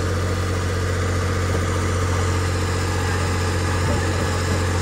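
Tractor engine running steadily with a constant low drone.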